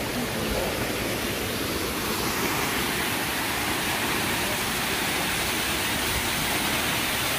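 Waterfall: the steady rush of water falling down a rock face, an even noise that grows a little fuller about two seconds in.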